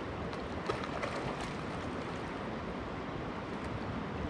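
Steady rushing of a shallow river running over cobbles and gravel, with a few faint clicks.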